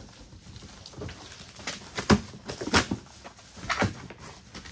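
A cardboard box being cut open and its flaps pulled apart, with rustling of packing material and a few sharp knocks and clacks about two, three and four seconds in.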